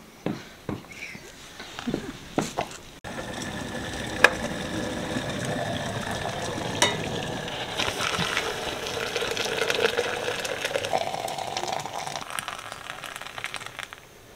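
Hot water poured in a steady stream from a glass electric kettle into a stainless steel french press, the pitch of the pour rising as the press fills. A few short knocks and rustles come in the first seconds.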